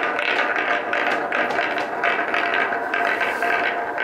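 Wooden balls rolling along a grooved plywood track: a continuous rattle of many small clicks as they bump over the wood and knock against the groove walls and each other.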